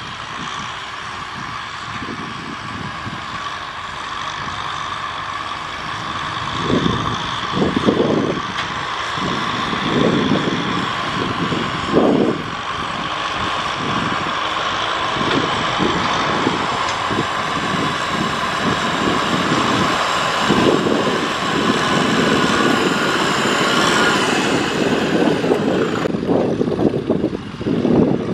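Farm tractor's diesel engine running under load as it pushes a pile of soil with a blade, a steady engine note with uneven low surges.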